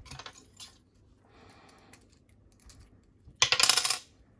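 Master Lock M530 padlock being taken apart by hand: small metal parts clicking, then a loud, brief metallic rattle about three and a half seconds in.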